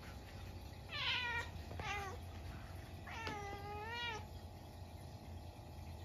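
Munchkin cat meowing three times while looking up at a stink bug that has got indoors: a falling meow, a short second one, then a longer drawn-out meow.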